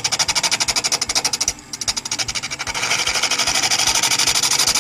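Turning tool cutting a small wooden top spinning on a wood lathe, giving a rapid, even rattle of many pulses a second. The rattle stops briefly about one and a half seconds in as the tool comes off the wood, then resumes.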